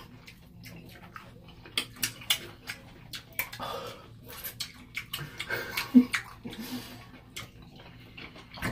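Wet squelches and small clicks of fingers handling juicy canned whole peppers and pulling off their tops, with a short hummed 'mm' about six seconds in.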